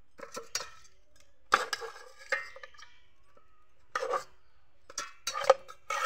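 Metal spatula clanking and scraping against aluminium pots as raw fish pieces are scooped and tipped from one pot into another: a run of irregular clinks, each with a short metallic ring.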